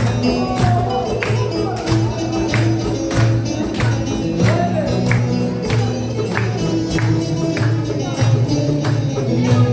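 Live Turkish folk music: a bağlama (saz) with darbuka, frame drum and tambourine beating a steady dance rhythm, about two strikes a second.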